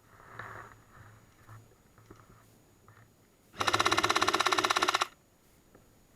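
Airsoft M60 electric support gun firing one full-auto burst of about a second and a half, a fast even rattle of shots. Fainter breathy rustling comes earlier.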